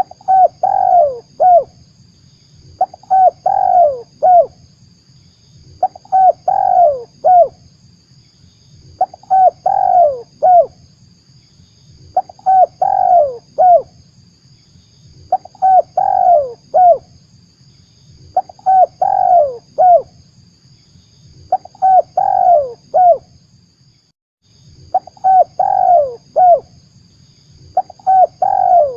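Spotted dove lure call: a cooing phrase of several notes, repeated about every three seconds, over a faint steady high whine and low hum.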